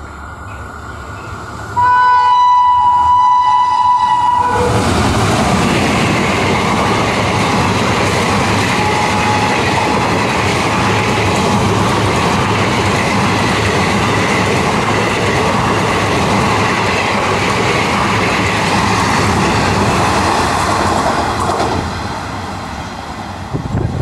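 WAP-5 electric locomotive horn: a short blast, then a long blast of about two and a half seconds as the train nears. The locomotive and its ICF passenger coaches then run through the station at speed, a loud steady noise of wheels on the rails that dies away near the end.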